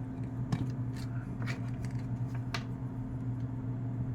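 Steady low electrical hum from the powered logic board setup, with a few light clicks and rustles of hands handling the board and meter leads.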